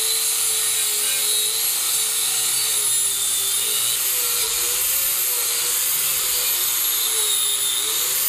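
Angle grinder with a knotted wire wheel brushing rust and grime off a Dana 60 axle housing. It gives a steady, loud whine whose pitch wavers up and down as the brush is pressed and moved over the metal.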